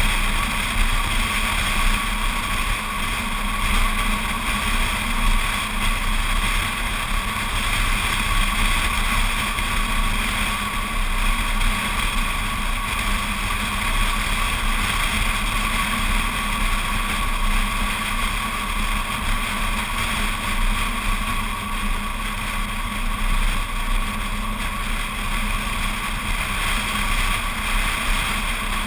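BMW Z4 Coupé cruising at a steady speed, heard from a camera mounted outside the car. Wind rushes over the camera, with tyre and road noise and a low drone underneath.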